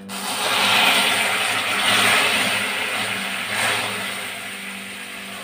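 Hot water poured a little at a time into molten caramelized sugar in a kadai, hissing and sizzling hard the moment it hits; the hiss starts suddenly, swells again about two seconds in and once more after three and a half seconds, then eases off as the caramel bubbles.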